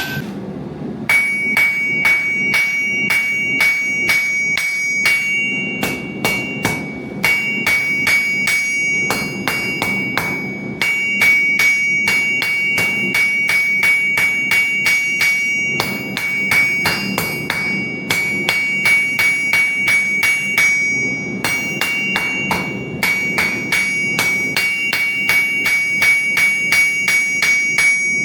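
A hand hammer striking metal on an anvil in quick, even runs of a few blows a second, with a bright, steady metallic ring under the blows. The runs stop briefly a few times, then start again.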